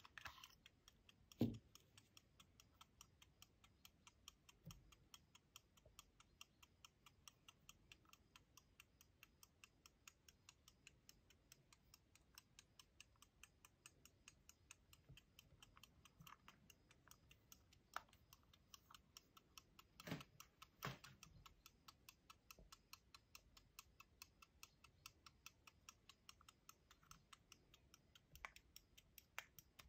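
Henry Massy verge fusee pocket watch of about 1710 ticking, faint, fast and even. A few louder clicks and knocks come from its silver pair case being handled: one about a second and a half in, and a couple around twenty seconds in.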